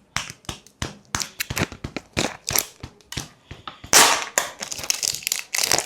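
Quick, irregular plastic clicks and crackles from a slime kit's plastic container being handled, with a louder rustling burst about four seconds in.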